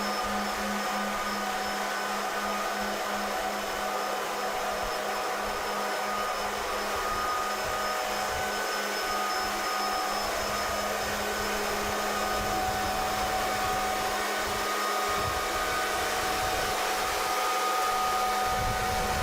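Machinery running steadily: a continuous whirring noise with a constant low hum and several steady high whining tones.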